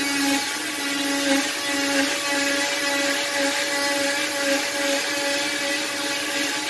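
Electric oscillating cast saw running at high speed as it cuts through a fiberglass leg cast: a steady motor whine whose lowest tone keeps faltering as the blade presses into the cast. The cutting noise averages about 75 dB.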